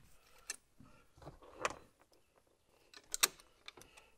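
Scattered light clicks and taps of a bolt, spacer and hand tool being handled while a bolt is started on an engine bracket; the loudest is a sharp click a little after three seconds.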